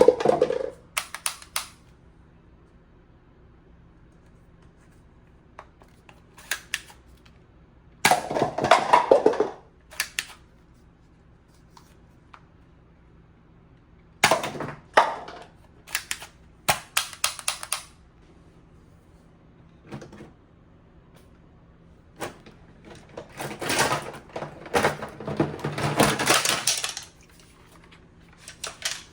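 Toy gun being handled: bursts of plastic clicking and rattling several seconds apart, with a longer run of rattling near the end.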